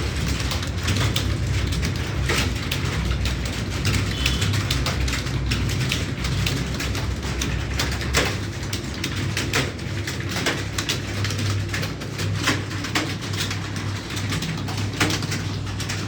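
Computer keyboard keys clicking in rapid, irregular typing over a steady low hum.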